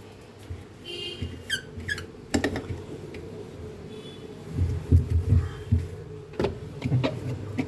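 A damp cloth wiping refrigerator surfaces, with short squeaks falling in pitch about a second in and rubbing later on. There are a couple of sharp knocks, at about two and a half seconds and again near the end.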